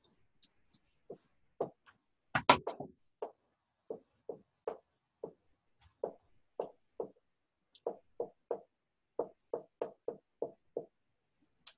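Pen tapping on a hard writing surface while a proof is written out: a series of short, light knocks, about two a second, with a louder cluster about two and a half seconds in.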